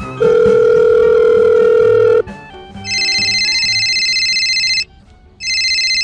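A steady electronic beep lasting about two seconds, then an electronic telephone ringing in warbling bursts of about two seconds each, the second burst starting just before the end.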